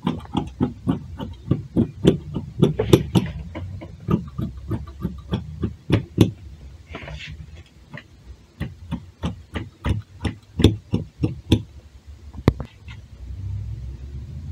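Fabric scissors snipping through cloth to cut out a sleeve piece: a quick run of crisp snips, several a second, breaking off around seven seconds in, then resuming, with a last snip near the end. A low steady hum runs underneath.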